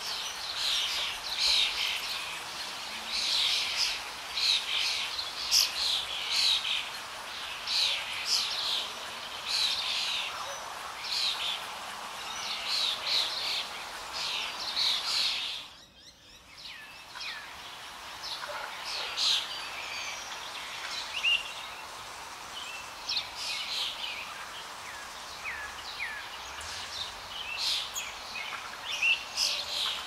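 A flock of rainbow lorikeets calling in a rapid run of short, harsh chatter over a steady background hiss. The sound breaks off briefly about halfway, after which the calls are sparser.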